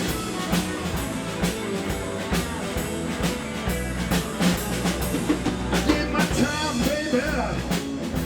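Blues band playing an instrumental break: a drum kit keeps a steady beat over a bass line, and about halfway in a lead line of bending notes comes in.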